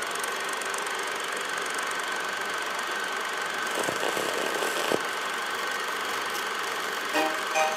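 Old film projector running, a steady mechanical whir with hiss and faint crackle. A plucked tune starts near the end.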